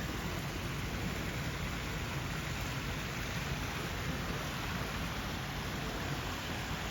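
A steady, even rushing noise with no distinct events, like rain or running water.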